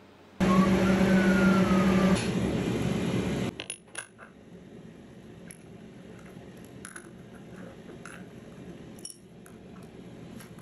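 A loud, steady hum with noise and a falling whine for about three seconds, then it stops. Light metallic clicks and taps follow as a back plate is fitted to a small metal mini chuck and its socket-head cap screws are turned with a hex key.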